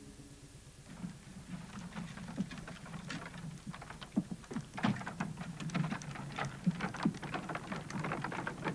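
Horse pulling a wooden-wheeled cart over snowy ground: an irregular clatter of hooves, wheels and harness that starts about a second in.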